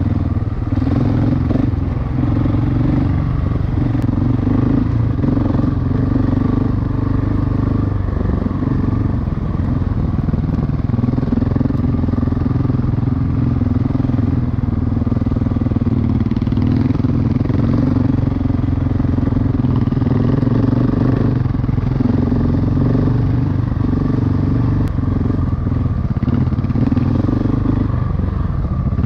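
Single-cylinder dual-sport motorcycle engine running at a fairly steady pace, its note shifting only slightly.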